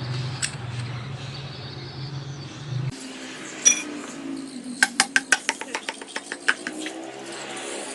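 Light metal clicks and clinks from hand work on engine parts and tools. About five seconds in comes a quick even run of about a dozen sharp clicks. A low steady hum stops about three seconds in.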